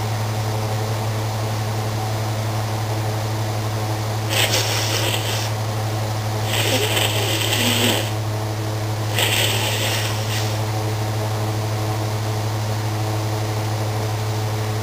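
A steady low electrical hum, broken a few seconds in by three rushes of hissing noise, each about a second long.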